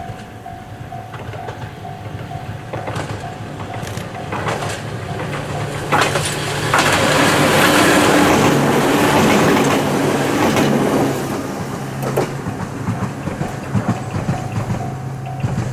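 Ohmi Railway 800-series two-car electric train approaching and passing close by, wheels clacking over rail joints. It is loudest from about seven to eleven seconds in, then fades as it runs away.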